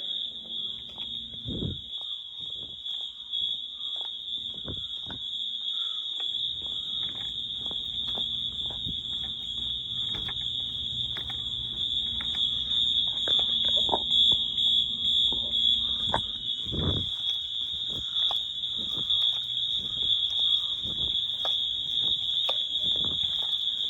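Fire alarm signaling devices, Wheelock MT multitone horns, sounding in alarm as a continuous high-pitched tone. Scattered short knocks sound over it, and a low hum joins about six seconds in.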